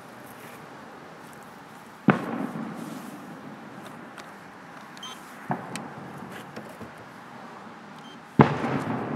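Aerial firework shells bursting: three sharp booms, about two, five and a half and eight and a half seconds in, each trailing off in a rolling echo. The last boom is the loudest.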